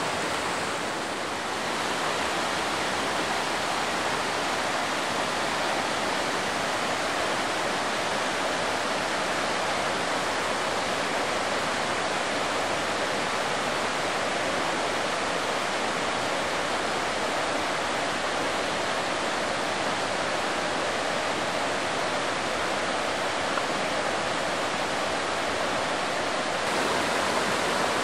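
Steady rush of river water flowing, after a tropical storm's heavy rain, growing a little louder near the end.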